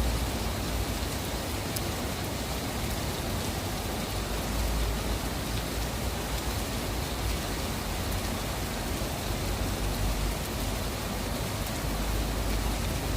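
Steady rain falling, an even hiss with faint drop ticks, over a low rumble that swells and fades several times.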